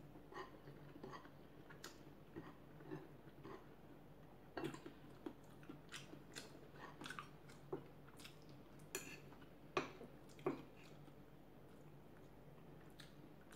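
A person chewing a mouthful of rice and pork sisig close to the microphone: faint, irregular mouth clicks and smacks, a few louder ones in the second half.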